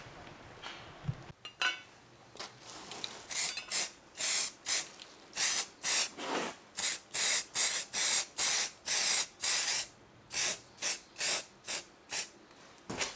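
Aerosol spray can hissing in a rapid series of short bursts, roughly two to three a second, starting about three seconds in, as it is sprayed over rust-treated steel brackets.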